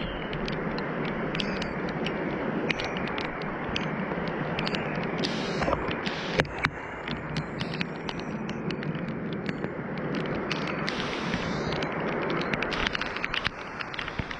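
Storm noise of wind and rain: a steady rushing with many sharp ticks scattered throughout, as of drops or debris hitting.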